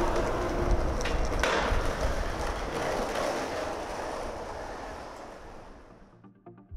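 Skateboard wheels rolling over rough asphalt, with two sharp clacks about a second in, the rolling noise fading away over the following seconds.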